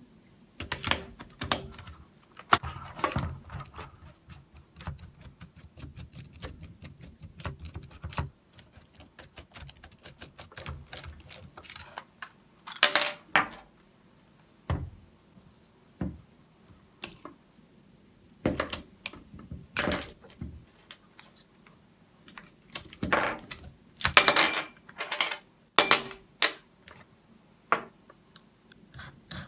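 Small hard parts and hand tools being handled while working on a cordless drill: irregular clicks, clinks and light knocks, some in short quick clusters.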